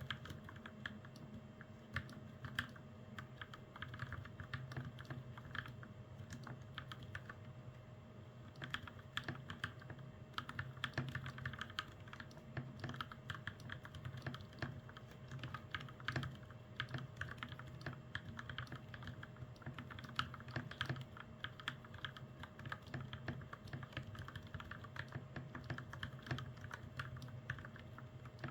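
Continuous typing on a custom mechanical keyboard fitted with Gateron Milky Yellow Pro linear switches and double-shot PBT keycaps, a dense, uneven run of soft keystrokes over a faint steady hum.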